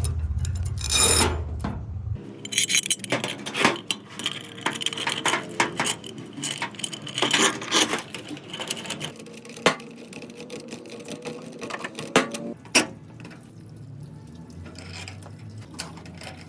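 Metal pieces clinking and knocking against each other in irregular strikes, some with a short ring, two sharp knocks near the end. A low hum stops suddenly about two seconds in.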